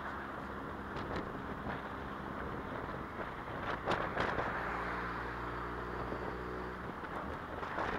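Wind and road noise in an open-top Mazda MX-5 cruising at a steady speed, with a brief louder gust on the microphone about four seconds in. Just past the middle, the car's four-cylinder engine comes through as a steady hum for a few seconds.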